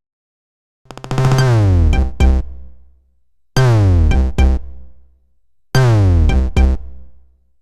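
An electronic Android ringtone: a short synthesizer phrase that slides down in pitch, followed by drum-machine hits. It plays three times, starting about a second in.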